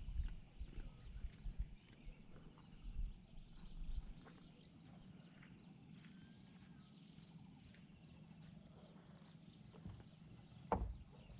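Quiet outdoor ambience with irregular low thumps in the first few seconds, faint scattered clicks, and one sharp knock near the end.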